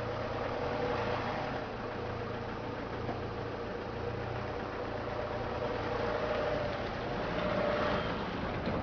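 Renault Master flatbed truck's 2.2 turbodiesel running at low revs while the truck manoeuvres slowly. It is a steady hum whose note swells a little twice in the second half.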